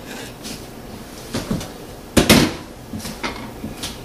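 Spatula scraping and knocking against a stainless steel pot of mashed potato, a few short knocks, with one louder thump about two seconds in.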